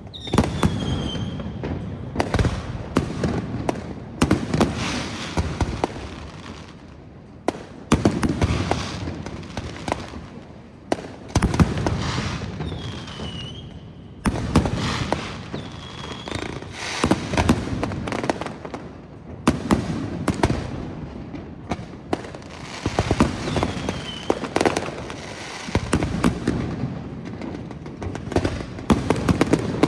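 Fireworks display: aerial shells bursting one after another amid dense crackling, with a few short falling whistles, and a rapid volley of reports near the end.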